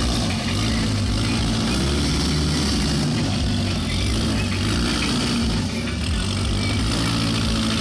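Off-road trial vehicle's engine running, its pitch shifting up and down with the throttle.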